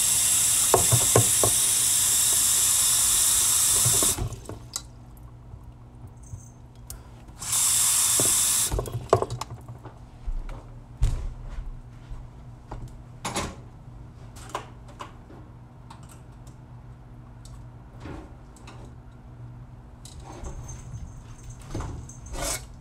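Kitchen tap running full into a pot, shut off about four seconds in, then run again briefly; afterwards scattered knocks and clatter of kitchen things being handled.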